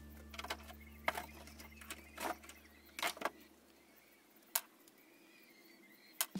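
About eight sharp, irregular clicks and light knocks of metal parts being handled: a brush cutter's aluminium drive-shaft tube and engine clutch housing being fitted together.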